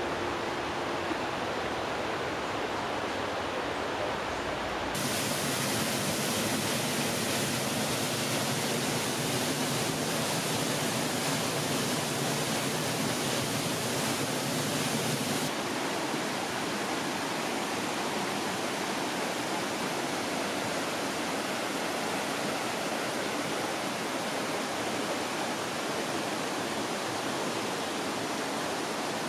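Steady rush of flowing water. It turns brighter and hissier about five seconds in and settles back about halfway through.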